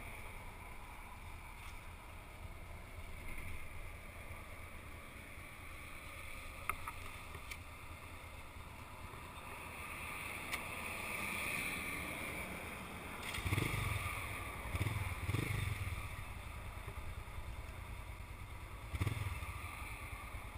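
Honda Africa Twin XRV750 V-twin motorcycle engines idling, heard muffled through a helmet camera's case, with a few louder low rumbles about two-thirds of the way in and again near the end.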